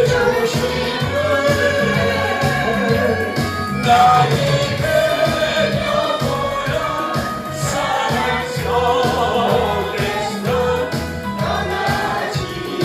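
A group of voices singing a gospel song together, with vibrato, over instrumental backing with a steady beat.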